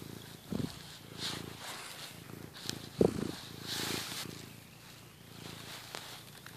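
Orange tabby cat purring steadily, recorded right up against her fur, with brief rustles of fur on the microphone and a soft bump about three seconds in.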